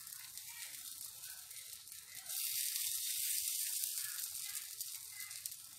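Bánh khọt batter sizzling in the hot cups of a bánh khọt pan. The sizzle swells about two seconds in as coconut cream is spooned onto another pancake, then eases off.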